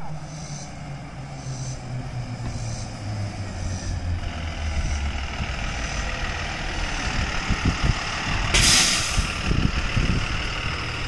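School bus approaching and slowing to a stop, its engine note dropping as it slows, with a faint high beep about once a second in the first few seconds. About nine seconds in, the air brakes let out a short, loud hiss as the bus halts.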